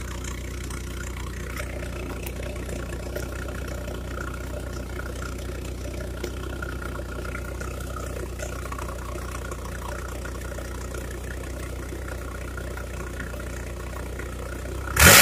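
Suzuki Carry engine idling steadily through a rebuilt exhaust with open twin tailpipes, heard close to the pipes; the exhaust was rebuilt to give a deep, bus-like tone. A sudden loud noise cuts in at the very end.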